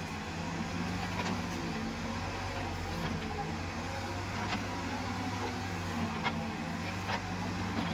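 Escorts Digmax backhoe loader's diesel engine running steadily as the backhoe arm digs into an earth bank, with a few short, sharp clicks over it.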